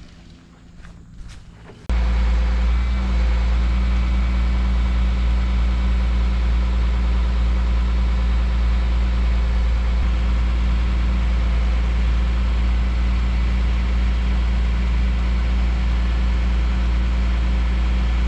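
Bucket truck's engine running steadily and powering the boom's hydraulics while the boom lowers the bucket. The sound cuts in suddenly about two seconds in, after a quieter stretch.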